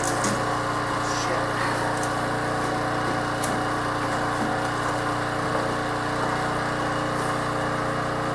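A steady motor or engine drone at an even pitch, with a few faint ticks over it.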